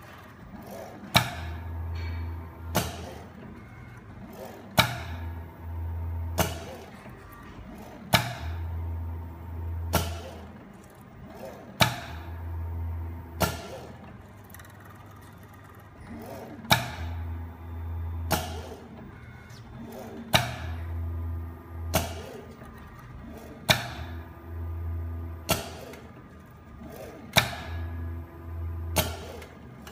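Two-part glue dispensing machine cycling: a sharp click, a second or two of low pump hum while it pours, then another click. The cycle repeats every three to four seconds, with one longer pause about halfway.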